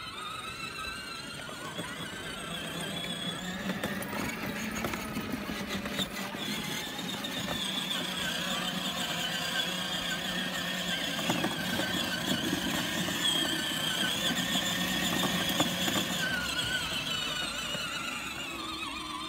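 The electric drive motors and plastic gearboxes of a 24-volt ride-on toy car whining steadily under way, a high whine that wavers slightly in pitch as the load changes.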